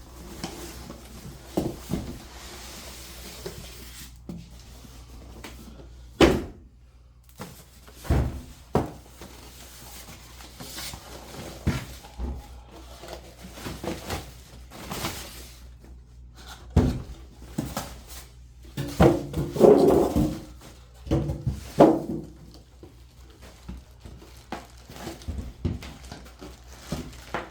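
Unpacking a boxed speaker by hand: cardboard packaging and contents being handled, with scattered thuds and knocks. There is a busier stretch of handling noise a little past the middle.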